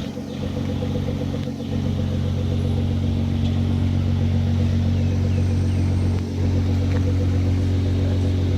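Nissan GT-R R35's twin-turbo V6 engine idling steadily.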